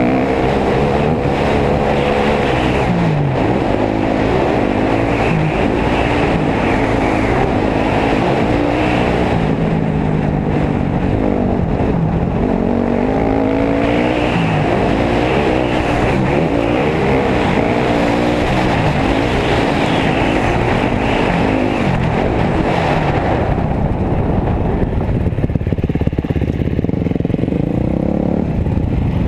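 Dirt bike engines on a trail ride, revving up and down through the gears with the pitch rising and falling again and again. The throttle eases off about three-quarters of the way through and the engine note softens.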